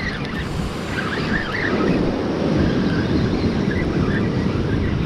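Ocean surf breaking and washing over shore rocks, mixed with wind buffeting the microphone; the low rush of the water grows louder about two seconds in.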